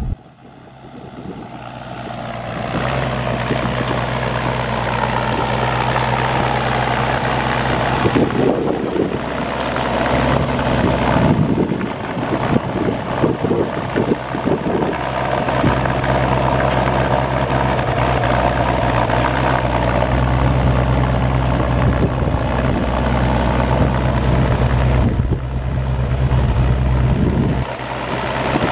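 Oliver 1600 tractor's Waukesha six-cylinder gas engine running at a steady idle. For a few seconds in the middle the sound turns uneven and choppy, then settles back to the steady idle.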